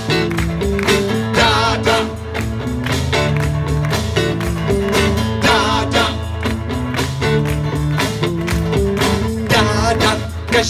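Live band playing a song: electric guitars, a bass guitar and an acoustic guitar over a steady beat, with men singing into microphones.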